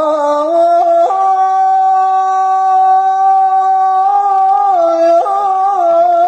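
A man singing an uzun hava, a Turkish long-air folk song, in a bare unaccompanied voice. He holds one long note for several seconds, then breaks into a wavering, ornamented line.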